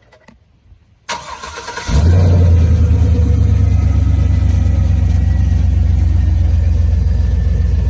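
Chevrolet Silverado SS's 6.0-litre V8 being started: a short crank about a second in, then the engine catches and settles into a loud, steady, deep idle.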